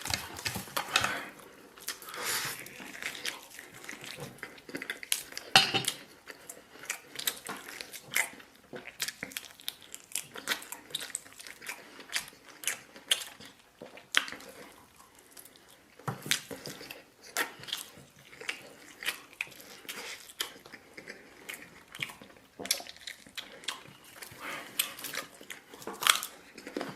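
A person eating close to the microphone: wet chewing and biting, with irregular sharp clicks of utensils against dishes.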